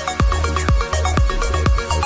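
Electronic dance music with a steady deep kick drum, about two beats a second, over held synth tones.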